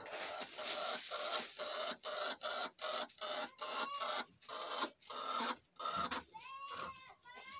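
Brown hens clucking as they scratch and peck through dry leaves and litter: a quick, even run of rustling strokes about three a second, then a few short rising calls near the end.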